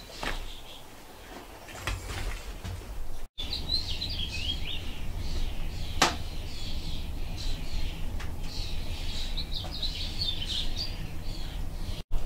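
Small songbirds chirping and twittering in quick, high calls over a steady low rumble, with one sharp click about six seconds in. Before the birdsong starts, about three seconds in, there are only a few faint knocks.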